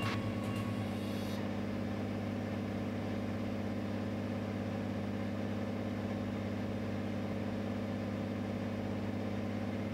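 Cirrus SR22's six-cylinder piston engine and propeller droning steadily in cruise flight, an even, unchanging hum.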